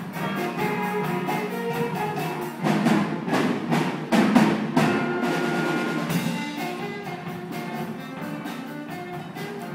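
A school band playing a piece live, horns and saxophones over a steady percussion beat. It swells louder with heavy drum hits about three seconds in, then eases to a softer passage.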